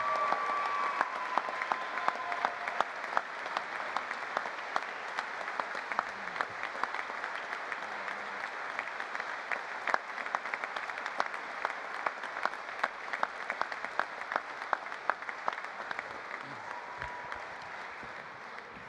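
Audience applauding, the dense clapping slowly thinning and fading toward the end.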